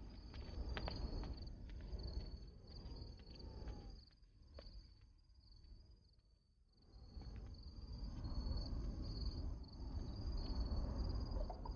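Insects chirping in a steady, high, pulsing trill over a low background rumble. The chirping drops nearly away for a couple of seconds midway, then returns.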